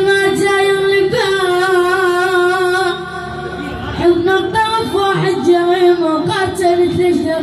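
Iraqi song: a singer holding long, wavering melismatic notes with vibrato over the accompaniment, with a brief dip in level about three seconds in.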